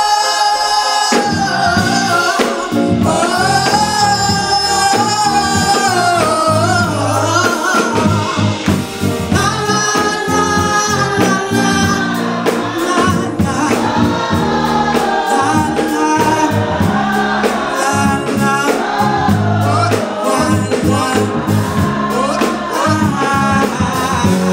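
Live band music with singing in a gospel style: long, gliding sung notes over bass and drums.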